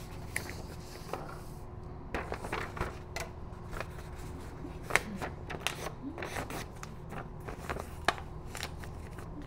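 Office room tone: a steady low hum with scattered small clicks, rustles and handling noises, two sharp taps standing out about five and eight seconds in.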